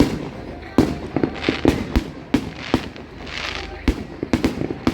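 Fireworks display: a rapid, irregular series of about a dozen sharp bangs from bursting aerial shells, with two bursts of crackling hiss about a second and a half and three and a half seconds in.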